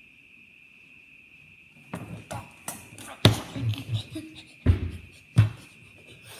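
Handling noise: a series of knocks and thumps on the recording device as it is bumped and moved. They start about two seconds in, the loudest near the middle, over a faint steady high-pitched tone.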